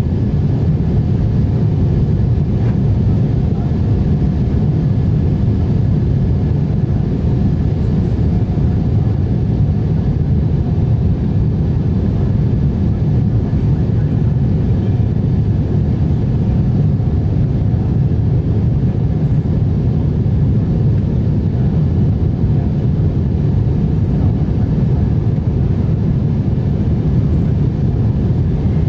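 Steady cabin noise of a Boeing 747-8 airliner shortly after takeoff, heard from a seat over the wing: its GEnx turbofan engines running, a deep even rumble with faint steady tones above it.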